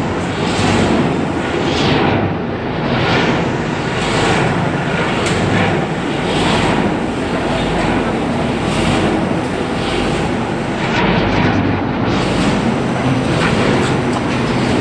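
Industrial machinery of a continuous carbonization furnace plant running: a loud, steady roar with a rise and fall about once a second.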